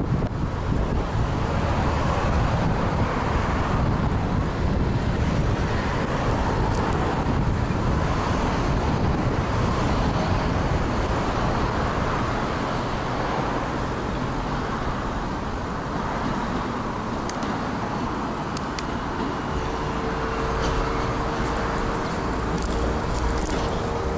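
Road traffic noise mixed with wind rumble on a bicycle-mounted action camera while riding along a city street. A steady hum joins near the end.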